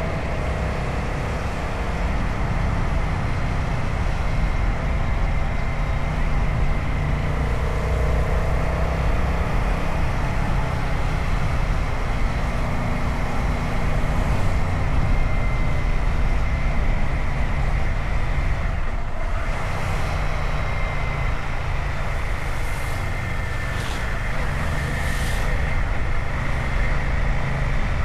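Royal Enfield Himalayan 450's single-cylinder engine running at road speed, under steady wind and road noise on the rider's microphone. The sound dips briefly about two-thirds of the way in.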